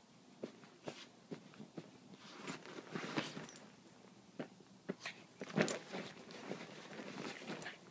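A puppy rustling about with a comforter: scattered soft clicks, taps and patches of rustling, the loudest burst about five and a half seconds in.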